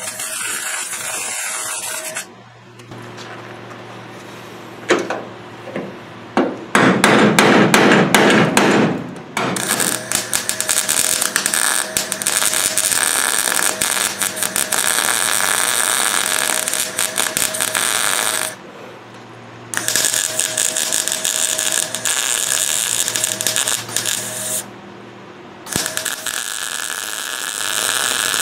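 MIG welder crackling as it welds steel body-panel seams on a 1968 Camaro. The welding comes in several runs of a few seconds each, with short breaks between. The loudest run is about seven to nine seconds in.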